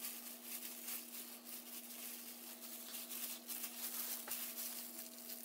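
Faint crinkling and rustling of thin plastic gloves as gloved hands work through a lock of hair, over a steady low electrical hum.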